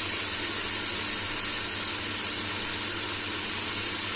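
Green beans and mushrooms sizzling steadily in the pan with a little water: an even, unbroken hiss.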